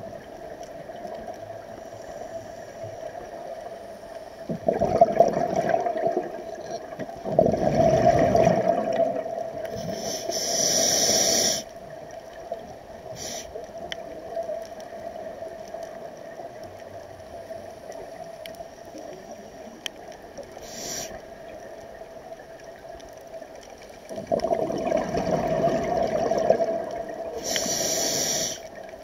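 Scuba regulator breathing underwater: long bursts of exhaled bubbles rumbling about five seconds in and again near the end, each followed by the short hiss of an inhaled breath.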